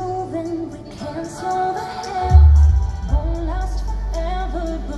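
Nighttime castle show soundtrack played over the park's loudspeakers: a sung melody over a pop-style backing, with a deep low boom a little over two seconds in.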